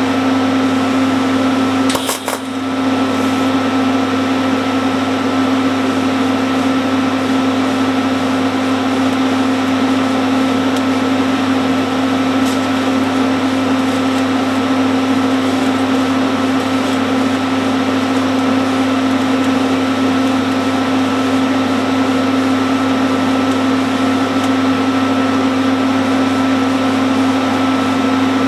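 Steady hum and hiss of the welding arc while a broken cast pipe-cutter casting is built up with silicon bronze, with a brief break about two seconds in.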